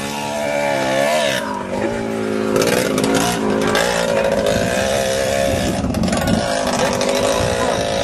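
ATV (four-wheeler) engine running close by and revving, its pitch dipping and rising about a second in, climbing again around three seconds in, then holding fairly steady.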